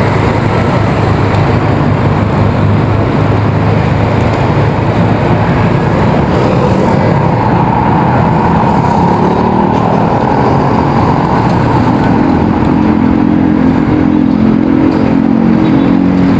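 City street traffic heard from a moving bicycle: a steady loud rush of passing cars, motorcycles and a bus. A steady engine hum comes in about twelve seconds in.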